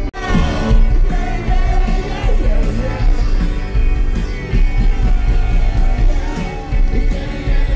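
Loud live rock music with a singer, a band playing through a concert sound system and heard from within the crowd.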